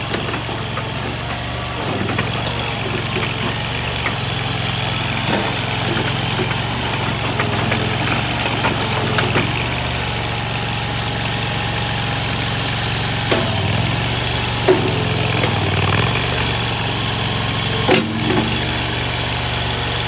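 AGT LRT23 tracked mini skid steer's engine running steadily as the machine is operated, with a few sharp clanks.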